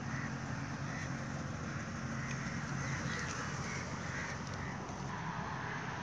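A flock of birds calling in short, repeated calls over steady background noise, with a low hum that fades out about two seconds in.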